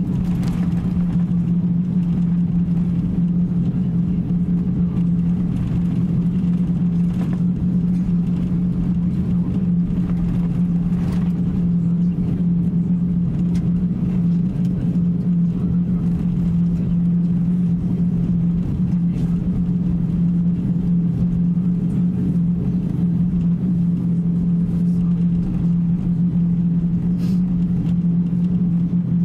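Airbus A350-900 cabin noise while taxiing: a steady low drone from the idling engines and cabin air system, with a few faint knocks.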